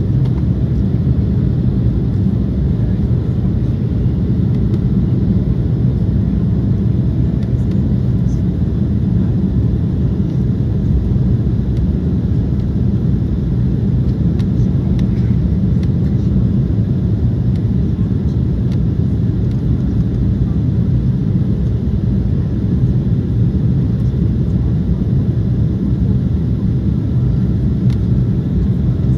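Steady cabin noise inside an Embraer 190 airliner in flight: an even, low rumble of its GE CF34-10E turbofans and the airflow over the fuselage, heard from a window seat over the wing.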